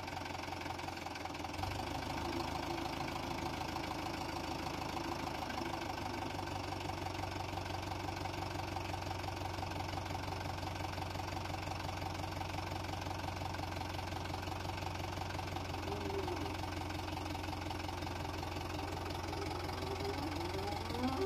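Mahindra Yuvo tractor's diesel engine running steadily, getting louder about a second and a half in.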